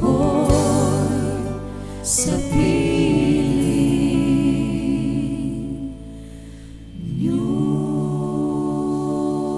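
Gospel-style praise and worship singing with choir voices over accompaniment, the sung lines wavering with vibrato. It fades about six seconds in, and a held chord comes in a second later.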